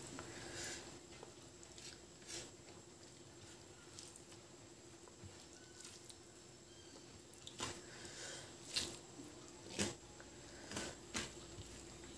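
Fingers squishing and mixing rice with dal and fried potatoes on a plate: soft wet squelches and scattered clicks of fingertips against the plate, two louder clicks about a second apart past the middle.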